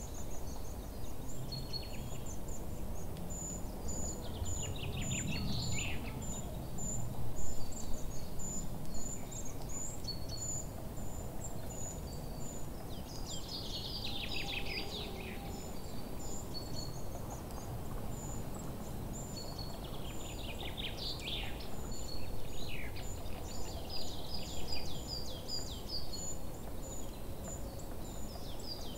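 Nature ambience: an insect chirping in short, evenly spaced high pips, about two a second, with birds calling in descending trills a few times, over a steady low background rumble.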